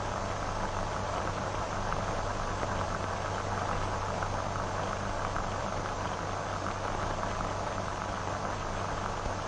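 Steady hiss and crackle of an old optical film soundtrack, with a low mains hum underneath.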